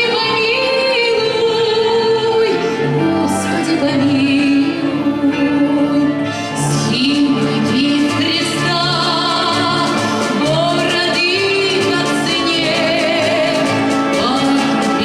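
Live orchestral music, with a woman's singing voice carried over the orchestra.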